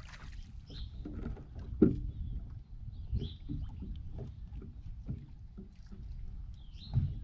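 Water lapping and knocking against a bass boat's hull, with a steady low rumble. There is a louder thump about two seconds in and another near the end, and a few short high chirps.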